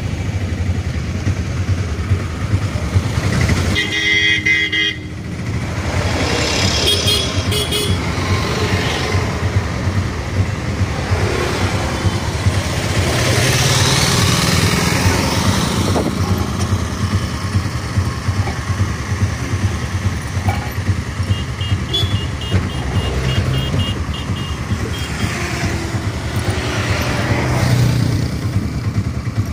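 Road traffic heard from a moving vehicle: a steady engine rumble with passing vehicles and horns honking. There is a long honk about four seconds in, shorter toots around seven seconds, and a run of quick beeps a little past twenty seconds.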